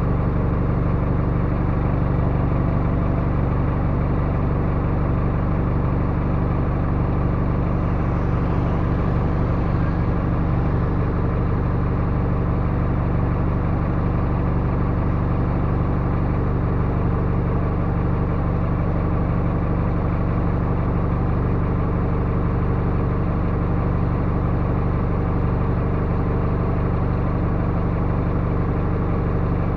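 Backhoe loader's diesel engine running steadily at an even speed.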